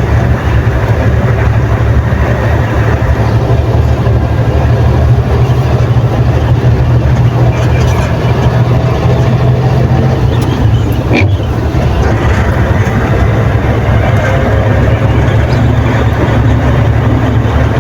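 Dump truck's engine running steadily under way, heard from inside the cab with a heavy low rumble and road noise. A single sharp click comes about eleven seconds in.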